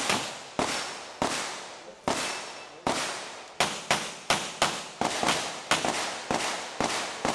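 Rapid pistol fire as a shooter works through a course of fire: about a dozen sharp shots at an uneven pace, roughly two a second, each trailing off in a short echo.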